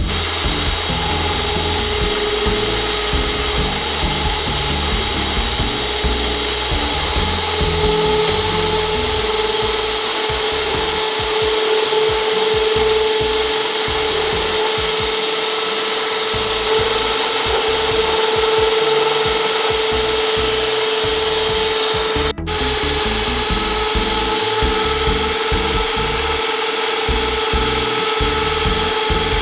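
Electric mixer running at high speed, its beaters whipping a thin powder-and-cold-milk ice-cream mix until it turns frothy and thick. A loud, steady motor whine, broken once for an instant about three quarters of the way through.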